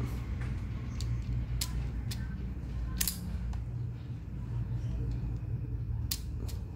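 Scattered sharp clicks of a Tekiro PL-AW1700 automatic wire stripper's jaws and handles being worked, about eight in all, the loudest about three seconds in. A steady low hum runs underneath.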